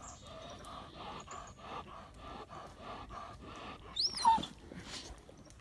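A dog whining in a run of short, uneven calls, with one sharp high yelp sliding down in pitch about four seconds in.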